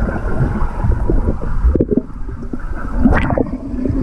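Pool water sloshing and lapping against a camera held at the waterline, heard as a muffled, churning rumble with many small knocks and one louder burst about three seconds in.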